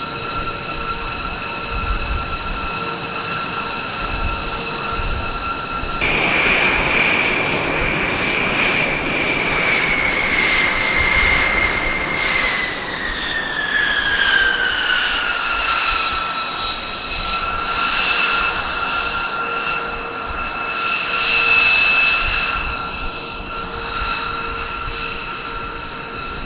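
B-2 Spirit's General Electric F118 turbofans whining as the bomber taxis, several steady whine tones over a rushing jet noise. About six seconds in the rush grows louder, and a few seconds later the main whine glides smoothly down in pitch, then holds steady.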